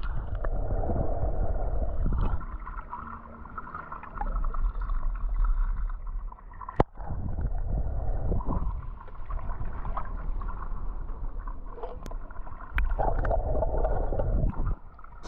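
Muffled underwater sound of a swimming pool heard by a submerged camera: low rumbling and gurgling of water moving around it, with one sharp click partway through.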